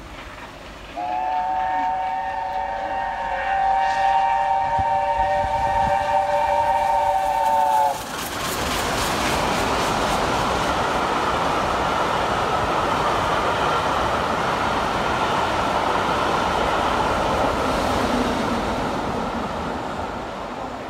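Steam locomotive's whistle held as a multi-note chord for about seven seconds, then cut off as the train runs through the station at speed with a steady loud rush of the engine and coaches on the rails, easing slightly near the end.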